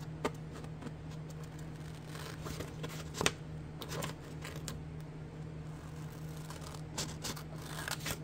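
Scissors cutting through a sheet of printed paper labels: a string of short, crisp snips, one of them sharper about three seconds in, over a steady low hum.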